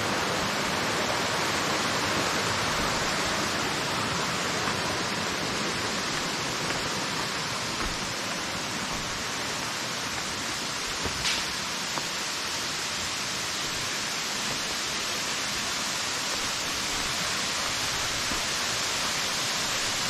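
Waterfall rushing steadily: a constant, even wash of falling water.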